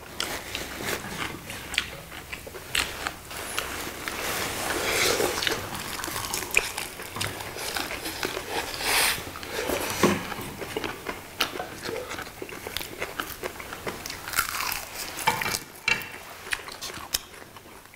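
People chewing and biting food close to the microphone, with crunching and many short crisp clicks.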